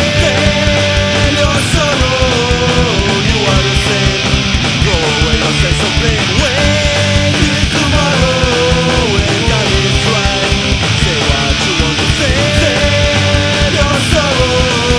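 Melodic hardcore punk rock song, played loud and steady by a full band with a fast drum beat, and a melodic lead line held and bent over the top.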